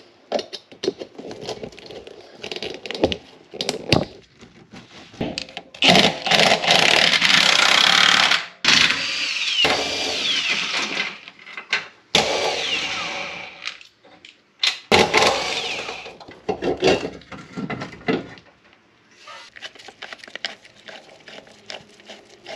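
Hand tools clicking and knocking against engine-bay fittings, then a cordless power tool running for several seconds, its whine rising and falling in pitch, followed by more sharp knocks and clicks.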